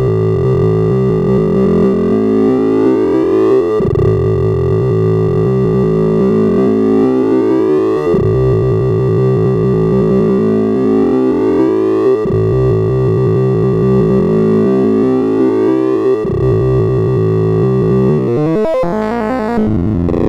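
Sound of Sorting sonification: a dense stream of computer-generated tones whose pitches follow the values being compared and moved by a sorting algorithm. It forms sweeping pitch runs that restart about every four seconds. Near the end a fast pitch glide sweeps through and the pattern changes.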